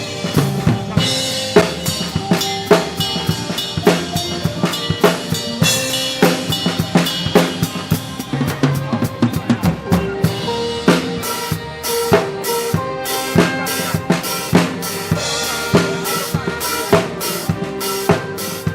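Live band playing a social-dance tune: a drum kit keeps a steady beat of kick, snare and rimshots under sustained melody notes.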